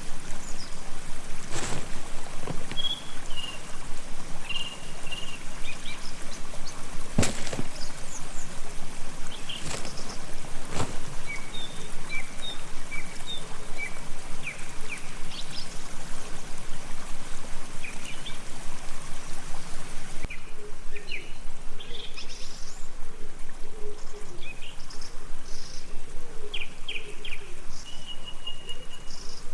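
Small birds chirping repeatedly over a steady trickling background noise, with a few sharp knocks in the first half.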